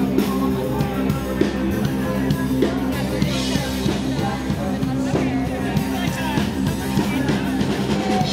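Rock music with singing and drums, steady throughout.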